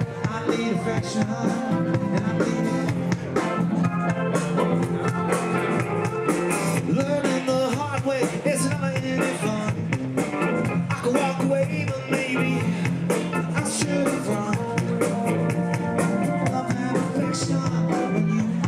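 Rock band playing live: electric guitars, bass, drums and keyboard, with steady drum strokes under sustained guitar and keyboard parts.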